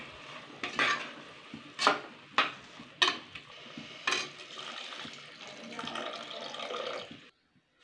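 A steel spoon clinks and scrapes against an aluminium pressure cooker as thick kootu is stirred, with several sharp knocks. About four seconds in, water is poured from a steel cup into the cooker, a steady splashing pour that cuts off suddenly near the end.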